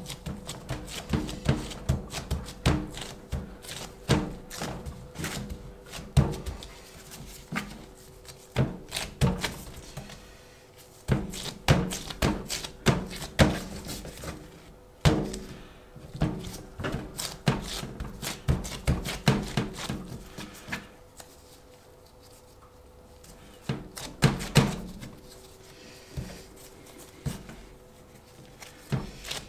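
Hands working risen bread dough on a work surface, with irregular thunks and taps as the dough is pressed and handled. There is a quieter pause a little after the middle.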